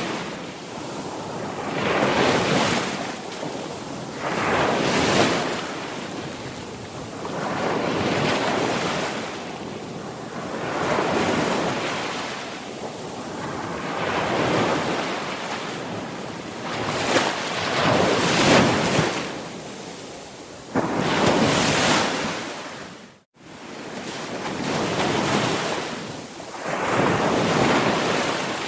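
Sea waves breaking and washing in, the surf swelling and falling back every two or three seconds. About 23 seconds in, the sound cuts out for a split second and then comes back.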